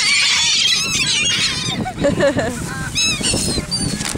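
A flock of birds calling over one another: many short, high, overlapping squawks, densest in the first second and again about three seconds in.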